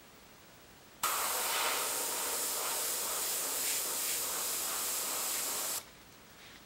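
Gravity-feed airbrush spraying ink: a steady hiss of compressed air through the nozzle that starts abruptly about a second in as the trigger is pressed and cuts off abruptly about five seconds later when it is released.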